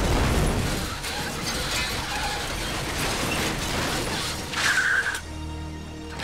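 Hissing, clattering noise from an overturned, wrecked car, with a short high squeal just before five seconds in, then giving way to a low, steady music drone.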